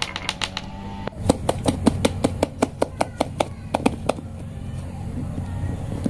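Marbles clacking against the walls of a carved wooden marble-run track: a rapid, even series of sharp clicks, about five a second, that stops about four seconds in. A steady low hum runs underneath.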